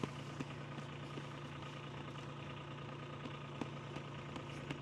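Toyota Tundra pickup's engine idling steadily while it warms up, with a few faint clicks.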